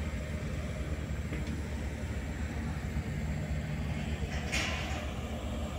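Heavy diesel engine of the Cometto girder transporter running at a steady idle, a low even hum, with a short hiss about four and a half seconds in.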